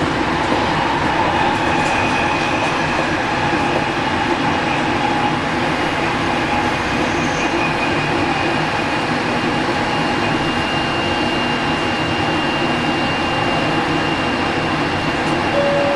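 JR Kyushu 815 series electric train running along the line, heard from on board: a steady rumble of wheels on rail. A thin, high steady tone joins it in the latter part.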